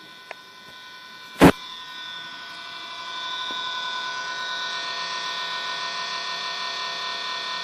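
Xbox console making an abnormal steady electronic whine-hum with several high pitches at once, which grows louder about two to three seconds in and then holds steady. A single sharp knock sounds about a second and a half in.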